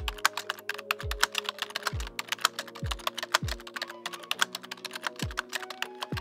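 Keyboard-typing sound effect: a rapid run of key clicks over background music with a steady low drum beat.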